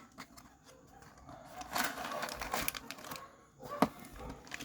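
A small cardboard figure box being opened and its plastic packaging handled: rustling and crinkling with scattered clicks, a longer rustle about two seconds in and a sharp click near the end.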